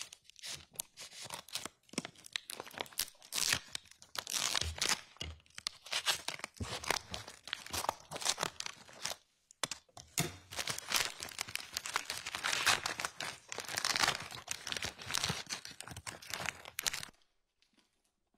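Sealed plastic evidence bag being cut and torn open with scissors and handled: irregular crinkling and tearing of plastic that stops about a second before the end.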